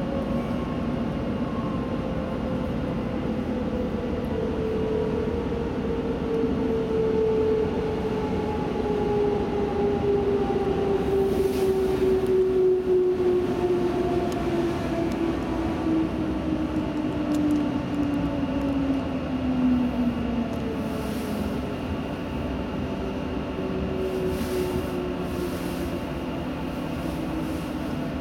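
Inside a DB Class 420 S-Bahn electric multiple unit slowing into a station: the traction motors' whine falls steadily in pitch for about twenty seconds over the steady rumble of wheels on rails.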